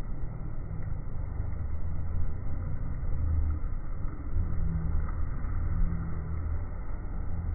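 Low, steady rumble of Niagara Falls' water crashing onto the rocks below, mixed with wind buffeting the microphone.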